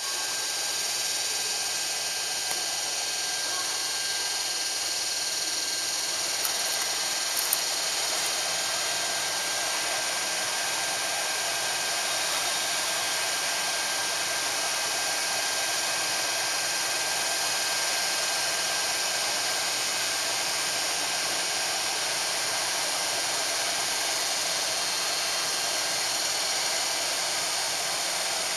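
Electric freight locomotive standing ready to depart, its cooling blowers running with a steady whirring hiss and a faint high whine. A couple of light clicks come about seven seconds in.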